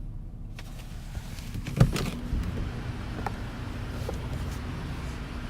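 A vehicle engine running steadily, with one sharp knock just under two seconds in and a few faint clicks after.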